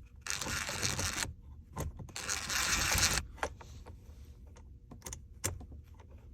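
Impact driver run in two short bursts of about a second each, driving a steering wheel fastener back in, followed by a few light clicks of handling.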